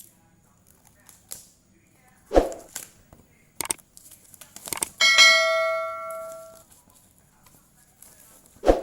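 Packaging and parts being handled, with scattered clicks and two dull thumps. About five seconds in comes a single bell-like metallic ring of several tones that fades out over about a second and a half.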